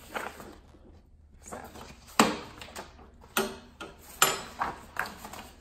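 Stiff art-print sheets being handled at a paper cutter: a series of sharp paper rustles and flaps as the prints are flipped through and laid down, the loudest about two seconds in.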